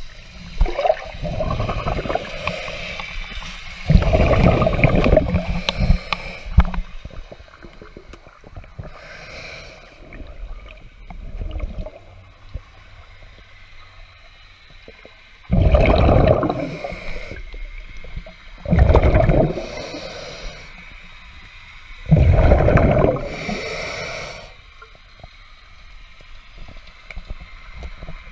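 Breathing and bubbling heard through an underwater camera: several loud rushing breaths a few seconds apart, the longest about two seconds, with water gurgling between them.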